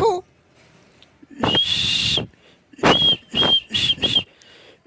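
A parrot calling: one call of just under a second, then four shorter calls in quick succession.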